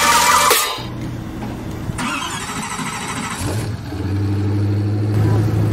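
Supercar engine running, with a change in engine note about two seconds in. From about three and a half seconds it settles into a steady low idle.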